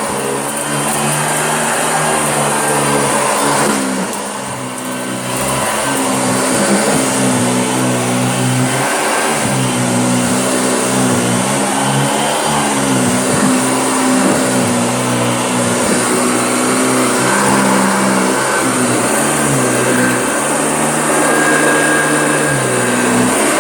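Hoover Junior upright vacuum cleaner running continuously, its motor pitch repeatedly dipping and rising as the load on it changes. The level drops briefly about four seconds in.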